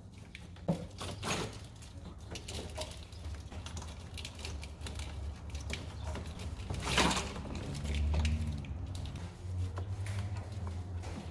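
Engine wiring harness being worked loose from a Chevy 5.3 LS V8, its dried-out plastic loom and connector clips clicking and crackling irregularly, with one sharper knock about two-thirds of the way through.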